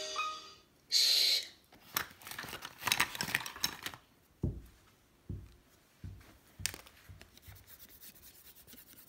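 Rustling and rubbing handling noises with scattered clicks, then four soft low thumps in quick succession around the middle.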